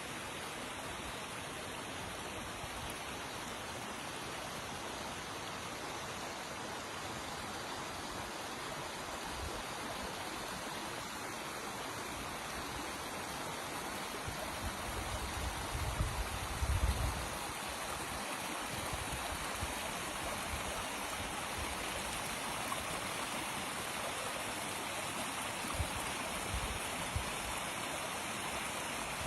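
Stream of water running steadily, an even rushing noise. Brief low rumbles come about halfway through, with a few short low knocks near the end.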